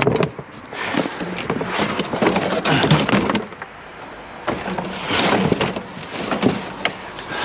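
Junk and debris in a dumpster crunching, shifting and clattering underfoot as someone clambers across it, in two long spells with a short lull between.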